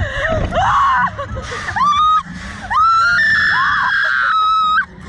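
A young woman screaming while flung about on a slingshot amusement ride: a few short rising cries, then one long high scream of about two seconds that cuts off suddenly near the end, over a low rumble.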